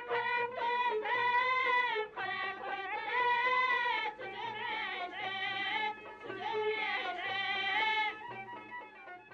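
Background music: a melody of long held notes with vibrato over a low repeating pulse, fading out near the end.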